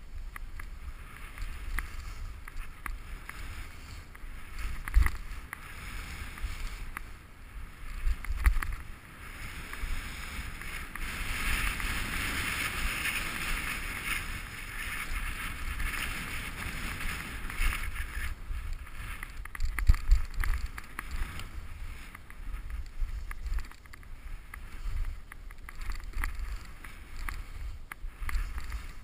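Skis sliding and scraping over choppy, packed piste snow as a steady hiss that swells loudest around the middle, with wind buffeting the camera microphone and several low thumps as the skier rides over bumps.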